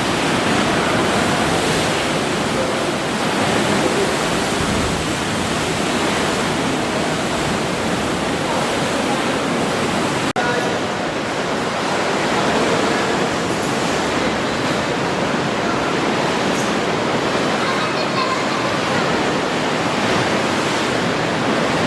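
Sea waves washing against rocks, a steady rush of water, with a brief dropout about ten seconds in.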